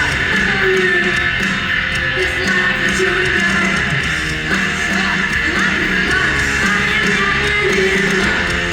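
Punk rock band playing live at full volume, with strummed electric guitars over a steady, dense band sound.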